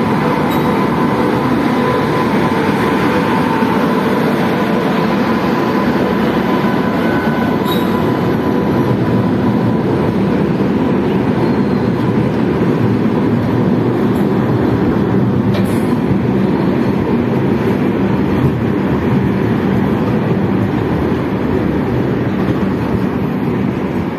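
A Shatabdi Express of LHB coaches, behind a WAP-7 electric locomotive, rolling past along the platform as it arrives, with a continuous rumble of wheels on rail. A steady whine sounds in the first few seconds, and the noise eases a little near the end as the train slows.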